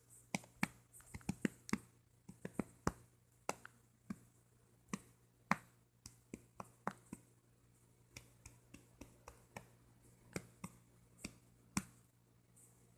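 A series of short, sharp clicks at uneven spacing, some much louder than others.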